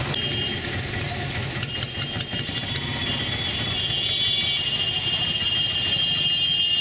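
Auto-rickshaw engine running as it moves through busy street traffic, with motorcycles around it. A high, thin, wavering whine joins in about two seconds in and holds on.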